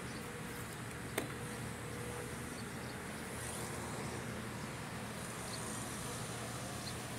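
Steady low drone of a running engine, with a single sharp click about a second in.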